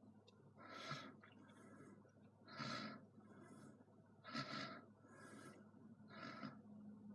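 Faint, soft puffs of breath close to the microphone, coming about every second or two in an even rhythm, over a low steady hum.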